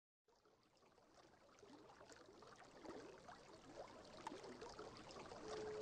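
Small stream babbling and splashing over rocks, fading in gradually from silence. Right at the end a Native American flute begins a held note.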